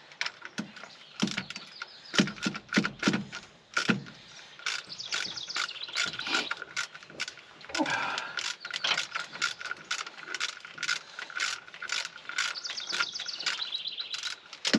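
Ratchet wrench clicking in quick runs of strokes with short pauses between them as a bolt is worked. Birds chirp faintly in the background.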